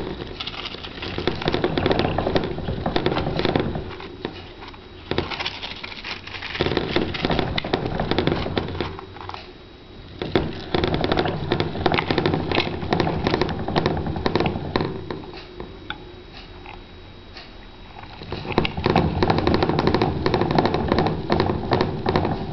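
Clear plastic hamster wheel rattling and clicking as Roborovski dwarf hamsters run in it, in spells of a few seconds with quieter pauses between.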